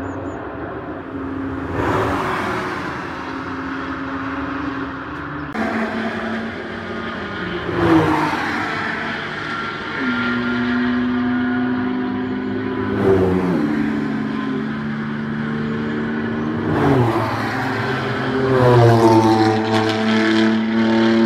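Cars driven hard on a race track, engines at full throttle passing one after another. Each engine note climbs and then drops sharply at a gear change, several times over. Near the end a louder car revs up through its gears.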